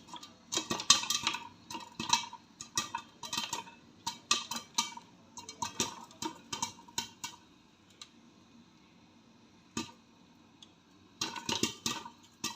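Popcorn kernels popping in a pan on the stove: irregular sharp pops and ticks come thick for the first several seconds, thin out to the odd one after about eight seconds, then come in a short cluster near the end.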